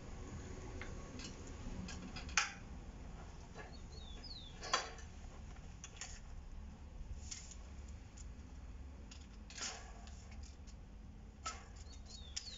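Scattered light metallic clinks and taps, about half a dozen spread irregularly, the loudest about two and five seconds in, from an iron bar being handled at a bench vise while it is set up for cold twisting.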